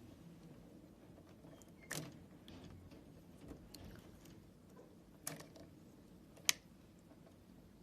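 Small clicks and knocks of wire connectors being handled, pulled off and pushed onto the sockets of a tennis ball machine's control panel: three distinct clicks, about two seconds in, about five seconds in and the sharpest a second later, with fainter ticks between.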